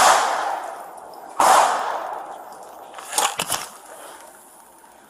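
Gunshots in an exchange of fire. The echo of a shot is dying away at the start, a loud shot comes about a second and a half in with a long echo, and then a quick volley of three or four sharp shots follows about three seconds in.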